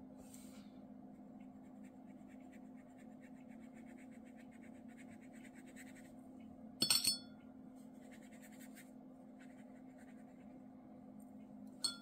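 Faint scratchy brushing of a round watercolour brush being worked across textured watercolour paper. A short ringing clink comes about seven seconds in, over a steady low hum.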